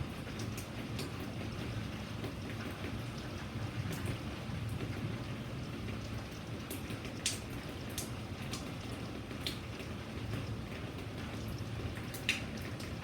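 Steady rain with individual drops ticking sharply on a hard surface close by. A few drops land louder, most of all about 7 and 12 seconds in.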